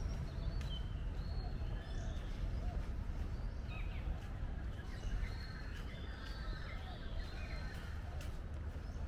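Several birds chirping and calling in short high notes, over a steady low rumble.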